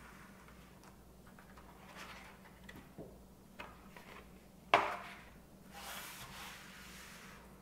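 Handling of a vinyl LP's cardboard jacket and inner sleeve on a tabletop: soft rustles and light taps, a single sharp knock a little under five seconds in, then a brief sliding rustle as the sleeved record is moved.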